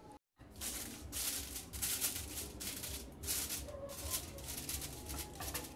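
Aluminium foil crinkling and rustling irregularly as it is pressed around a baking dish, with many quick crackles.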